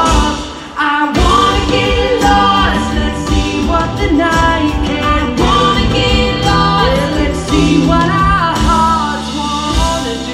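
A live band plays a pop song with drums, bass, guitars and singing. The band drops away briefly just after the start, then crashes back in together with a drum hit.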